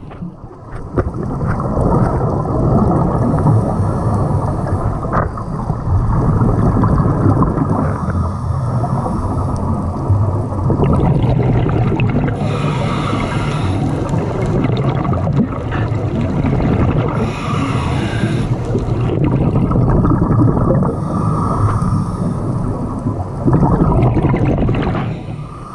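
Underwater sound on a scuba dive: a steady low rumble of water moving against the camera housing, with repeated bursts of bubbling a few seconds apart from a diver's regulator exhalations.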